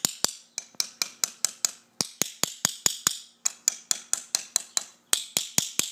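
Hammer tapping a metal Torque Lock structural staple into holes across a crack in a pool's concrete wall: quick, even, light strikes about four a second, with a brief pause near the end, driving the staple in evenly until it seats.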